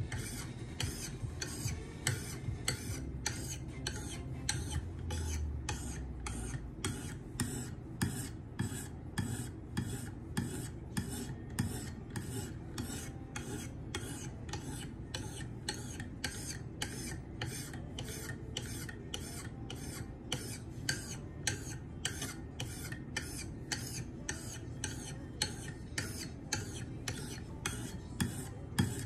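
A 600-grit stone on a KME guided sharpening system stroked back and forth along an ESEE 4 knife's edge, a rasping scrape about twice a second in an even rhythm.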